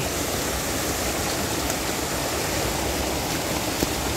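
River water rushing over rocks, a steady even noise.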